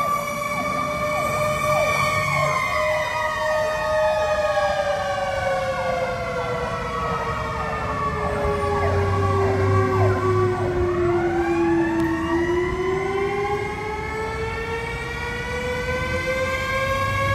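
Emergency sirens sounding together. One siren winds slowly down in pitch over about ten seconds and then climbs again, while another sweeps up and down faster over it.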